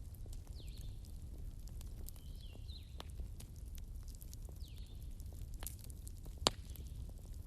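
Bonfire of burning wood crackling: a steady low rumble under scattered sharp crackles and pops, the loudest pop about six and a half seconds in. Faint high chirps recur every second or two.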